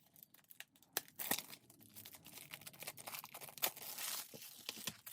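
Plastic shrink wrap being torn and crinkled off a CD jewel case, a busy run of crackles with sharp clicks and snaps.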